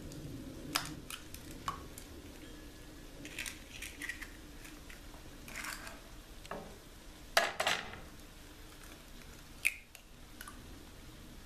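Eggs being cracked and broken open over a glass mixing bowl: sharp clicks and short crackling bursts of shell at irregular intervals, with the loudest cracks about seven seconds in and again near the end.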